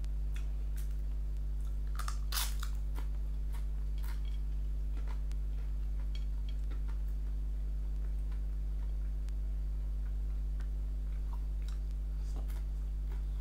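Close-up eating sounds of a person eating rice by hand: chewing and wet mouth smacks with scattered crisp crackles, the loudest about two seconds in. A steady low electrical hum lies under them.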